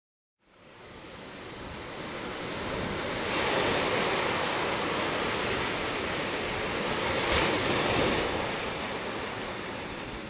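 Ocean surf breaking and washing over rocks, a steady rushing wash that fades in at the start, swells louder with surges in the middle, and eases off near the end.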